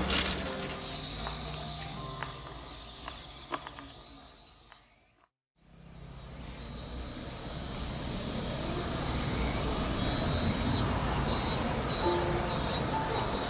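Insects calling outdoors: a steady high-pitched drone with pulsed chirps joining near the end. Before that, about five seconds in, the sound fades briefly to silence.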